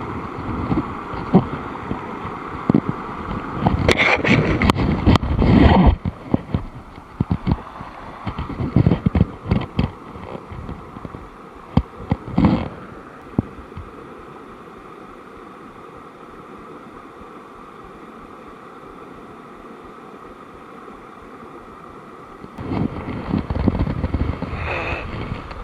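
Running river water with wind buffeting the microphone, broken by scattered knocks and bumps; the noise swells loudly twice, about four seconds in and again near the end.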